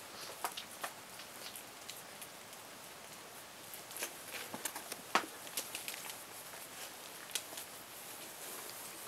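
Four-week-old puppies shuffling and scrabbling on a puppy pad against their mother: faint, scattered rustles and soft clicks, a little sharper a few times.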